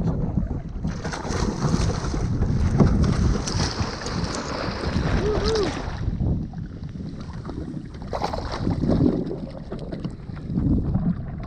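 Wind buffeting the microphone over water sloshing around a kayak, with a louder rush in the first half.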